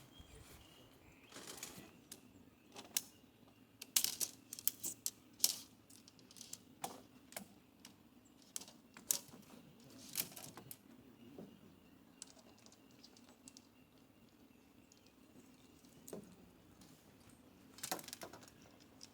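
Irregular light clicks and taps in small clusters, busiest around four to six seconds in and again near the end.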